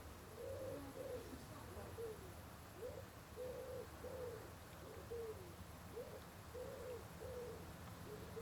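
A pigeon cooing faintly: a series of short, low, soft notes, some in pairs, repeated steadily.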